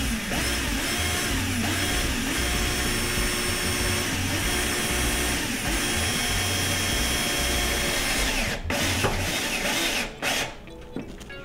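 DeWalt DCD710 12-volt cordless drill/driver driving a mounting bolt down through the cabinet floor into an over-the-range microwave. The motor speed rises and falls as the trigger is eased, driven slowly so the threads don't strip. It stops briefly about eight and a half seconds in, cuts out near ten seconds, and is quieter near the end.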